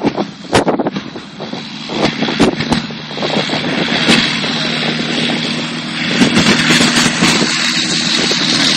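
Light aircraft's propeller engine running at high power, growing louder over the first few seconds and then holding steady. Several sharp thumps come in the first two seconds.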